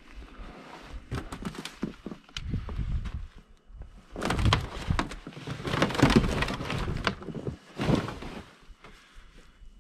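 Irregular rustling and crunching in snow with scattered light knocks, heaviest in the middle stretch, as the snow-covered snowmobile is handled before starting.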